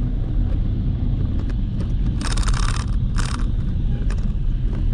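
Steady low rumble of a vehicle on the move along the road, with two short hissing bursts about two and three seconds in.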